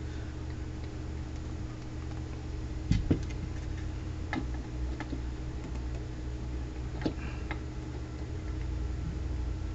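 Scattered small clicks and taps of tools and parts being handled on a circuit board, a few seconds apart, over a steady low hum.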